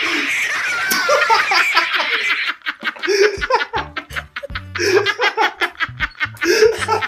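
A young man laughing hard, in repeated bursts, over background music with a steady beat and pulsing bass. A rushing noise fills the first two seconds or so before the beat comes in.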